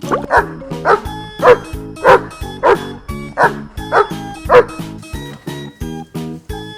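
A dog barking about eight times in a steady series, roughly one bark every half second or so, stopping about five seconds in, over background music with a steady beat.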